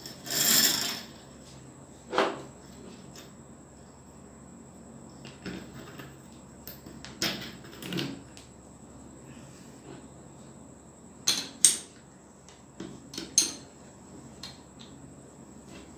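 Scattered metallic clinks and knocks of steel motorcycle front-fork parts, a tube and rod, knocking against each other as they are fitted together. The sharpest clinks come near the end.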